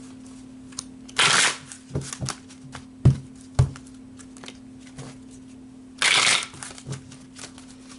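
Oracle cards being shuffled by hand: two short bursts of riffling, about a second in and about six seconds in, with scattered card clicks between. Two sharp knocks come about three seconds in.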